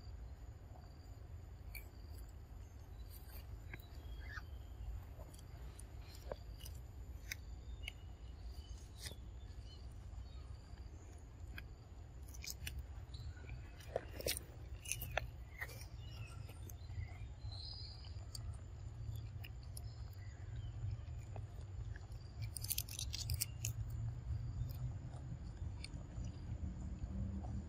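Macaques tearing and chewing crisp cabbage leaves: scattered crunches and crackles, busiest about 14 seconds in and again around 23 seconds, over a steady low rumble.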